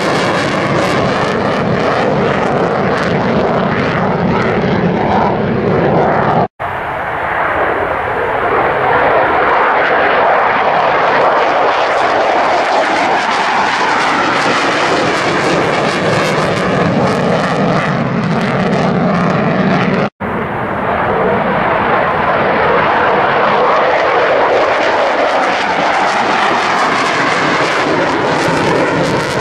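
Loud, steady jet engine noise from military fighters flying past: the single-engine F-2 for the first few seconds, then the twin-engine F-15J. The sound drops out for an instant twice at edits, and each time comes back duller, its hiss growing brighter as the jet comes on.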